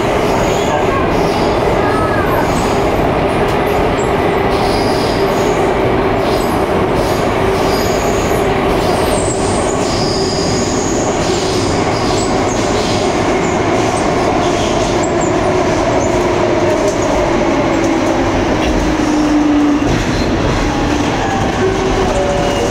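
Cabin running noise of an Alstom Metropolis C751A metro train: a steady loud rumble of wheels on rail with a steady motor whine that falls in pitch a few seconds before the end.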